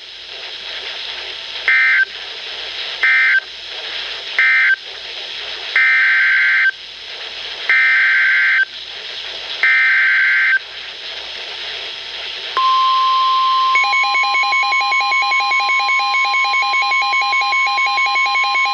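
NOAA Weather Radio SAME data bursts over radio hiss: three short buzzy bursts, the end-of-message code, then three longer bursts, the header of the next alert. About twelve and a half seconds in, the steady 1050 Hz weather radio warning alarm tone begins. About a second later, a rapidly pulsing alert tone joins it.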